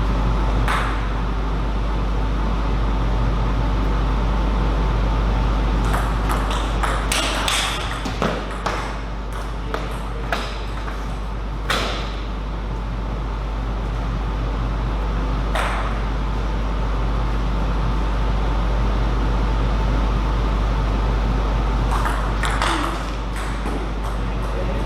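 Table tennis ball clicking off bats and table: a quick run of hits about six seconds in and another near the end, with single knocks between, over a steady low hum.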